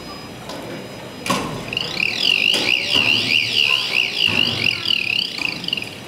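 Electronic warbling alarm tone, its pitch sweeping rapidly up and down about three times a second; it starts about two seconds in and stops just before the end. A single knock sounds just before it starts.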